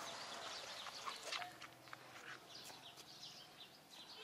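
Small birds chirping: many short, quick calls scattered throughout, faint against a quiet outdoor background.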